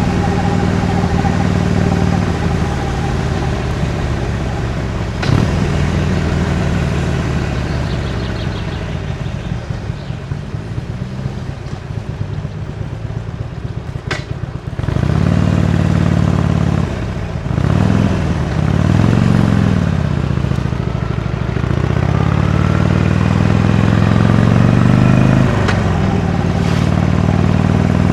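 Harley-Davidson Iron 883's air-cooled V-twin with stock exhaust, heard from the saddle while riding. The engine note eases off for several seconds as the throttle is rolled back, then picks up strongly about halfway through after a sharp click, swinging up and down in pitch before climbing steadily under acceleration and clicking again near the end, typical of gear changes.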